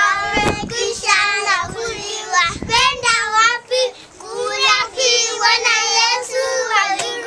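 Young children singing a song unaccompanied, in sung phrases with a short break about four seconds in.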